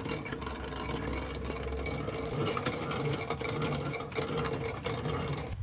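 Coil winding machine running steadily, winding fine enamelled copper wire onto a coil former, with a constant mid-pitched hum. It stops abruptly near the end.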